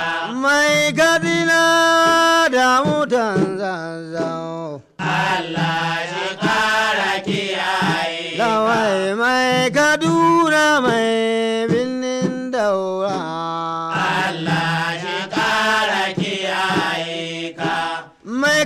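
Hausa praise song: a voice sings long, drawn-out wavering notes over a steady low drone in the accompaniment. The singing breaks off briefly about five seconds in and again near the end.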